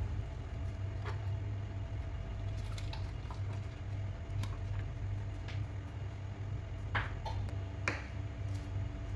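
Light clicks and taps of a spatula and ingredients in a nonstick frying pan, the sharpest about seven and eight seconds in, over a steady low electrical hum from the cooktop.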